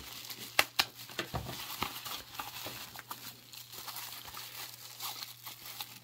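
Plastic bubble wrap crinkling and crackling as it is handled and pulled off a small cardboard box, an irregular run of crackles with two sharper snaps under a second in.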